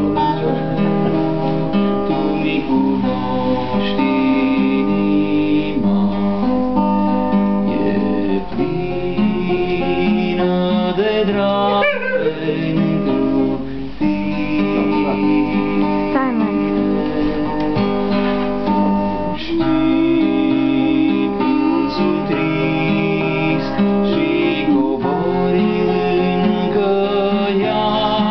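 Acoustic guitar strummed steadily, with a voice singing a Romanian worship song over it.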